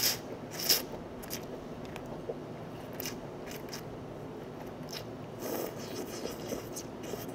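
A person eating instant noodles: chewing and mouth noises with a few short, sharp clicks and scrapes, the loudest just under a second in.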